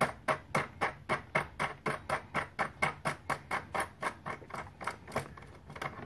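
Quick, even small metal clicks, about four or five a second, as a nut is turned by hand onto the threaded body of a motorcycle tour pack lock cylinder.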